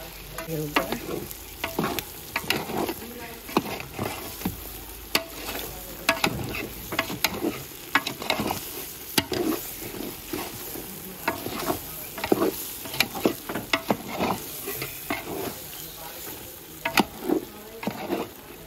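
Pork frying in a pan with a steady sizzle, stirred with a metal utensil that scrapes and knocks against the pan at irregular moments, several times a second.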